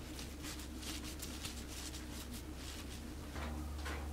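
Rustling and brushing of terry-cloth towels being tucked around a soap mould, a run of short soft scratchy strokes over a low steady hum.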